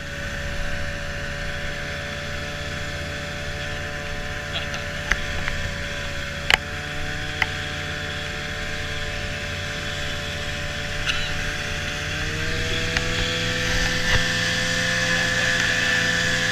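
Arctic Cat snowmobile engine running at a steady cruise, with a few sharp clicks. The engine note dips slightly about twelve seconds in, then slowly climbs.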